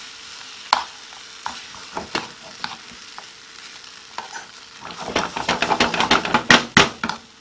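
Baked beans and curry sizzling in a frying pan while a spoon stirs them, with a few sharp taps of the spoon on the pan. From about five seconds in the stirring turns fast and loud, scraping against the pan.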